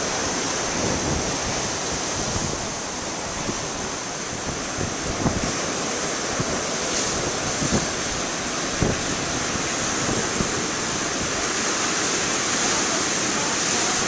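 Large storm waves breaking and washing over rocky shoreline, a steady churn of surf and foam. Strong wind blows into the microphone, adding occasional low buffeting thumps.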